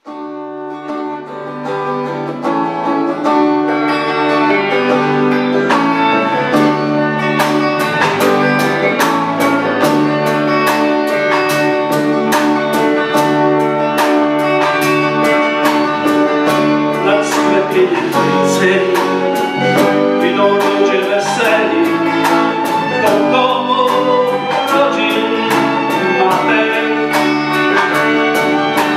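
A small band playing live: fiddle, guitars, bass guitar and drum kit. The drums come in with a steady beat about seven seconds in.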